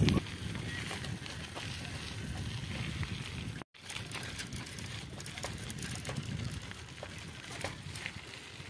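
Riding noise of a bicycle on a rough dirt track: a steady low rumble of wind on the microphone with small rattles and clicks from the bike. The sound drops out completely for an instant a little before the middle.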